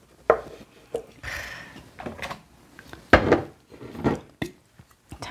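A spoon scooping gochujang (red pepper paste), scraping against a container and bowl and knocking on them about six times in short sharp taps, the loudest a little past the middle.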